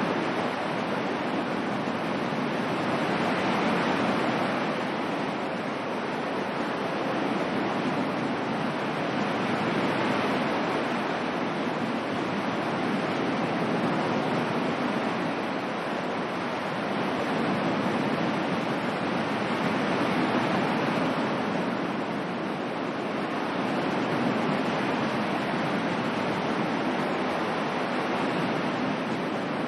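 Ocean waves washing on a shore as a steady white-noise bed, swelling and easing gently about every six seconds.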